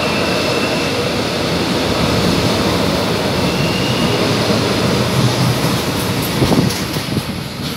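A stainless-steel São Paulo Metro train passing close by. Its wheels and running gear make a loud, steady rumble and hiss, with a brief high wheel squeal twice. A sharp knock and a few clicks come near the end.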